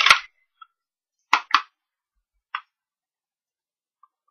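Plastic stamp-pad case being handled and opened: a short scrape, then two quick sharp clacks about a second and a half in and one lighter click a second later.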